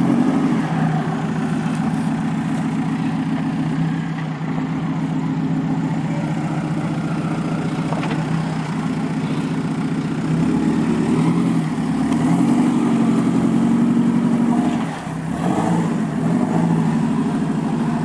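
Jeep Wrangler engine running at low revs under load as it crawls up a steep dirt trail, steady at first, then the revs rising and falling several times in the second half.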